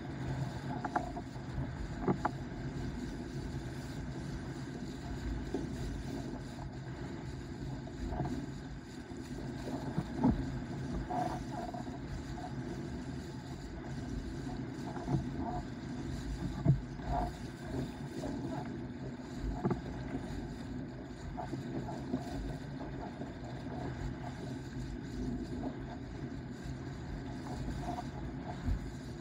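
Windsurf board, a Starboard 104-litre with a weed fin, sailing over open water: a steady rush of water and wind, with a few sharp slaps of the board on chop, the loudest about two, ten and seventeen seconds in.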